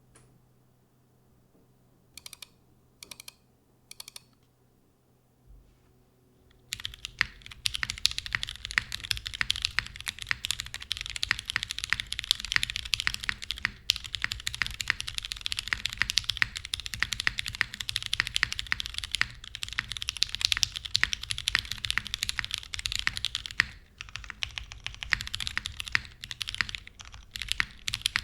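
Geonworks F1-8X 722 mechanical keyboard with lubed Pewter light-tactile switches, a full aluminum plate and GMK keycaps being typed on: three single keystrokes a few seconds in, then continuous fast typing from about seven seconds in, with a couple of brief pauses.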